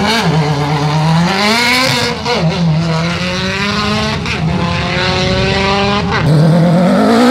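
Race car launching from a hill climb start and accelerating hard through the gears: the engine note climbs, drops at each upshift and climbs again several times. About six seconds in, an engine revs up loudly again.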